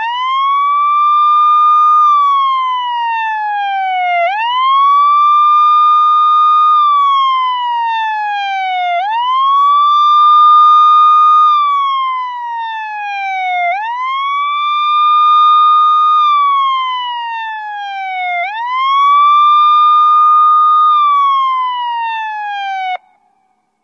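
Police siren wailing: each cycle the pitch rises quickly, holds briefly at the top, then slides slowly down. It repeats about every four and a half seconds for five cycles and cuts off suddenly near the end.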